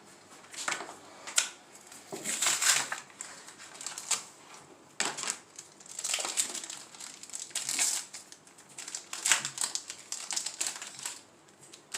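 Foil wrapper of a Yu-Gi-Oh Toon Chaos booster pack crinkling in repeated short bursts as it is handled and opened. The crackling stops about eleven seconds in.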